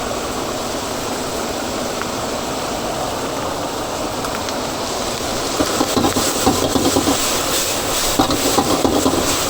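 Steady background noise, then from about halfway through a quick run of clattering knocks, the sound of cooks working with pans and utensils.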